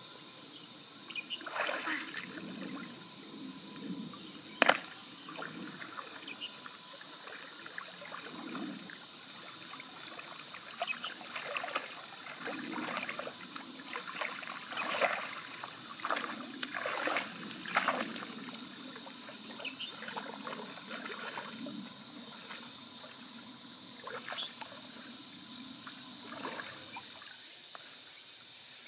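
Pond water sloshing and splashing irregularly as a person wades through the shallows and feels along the muddy bottom with her hands, over a steady high insect buzz. A single sharp knock about five seconds in is the loudest sound.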